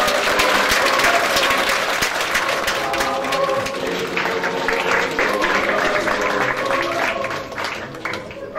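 Audience applauding, a dense patter of many hands clapping that dies away near the end, over background music.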